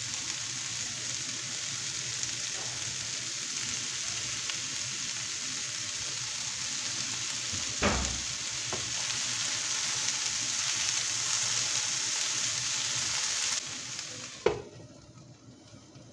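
Mixed vegetables sizzling steadily as they fry in a nonstick pan, with a light knock about halfway. Near the end the sizzle falls away and a glass pan lid is set down with one sharp clink, after which the frying goes on much quieter under the lid.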